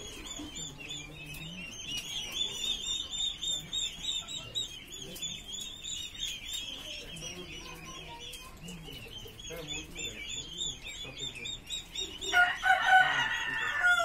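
Turkey poults and White Pekin ducklings in a brooder peeping constantly, a dense chatter of high, thin chirps that thins out after about nine and a half seconds. Near the end a louder call of about a second and a half, a rooster crowing, cuts across the peeping.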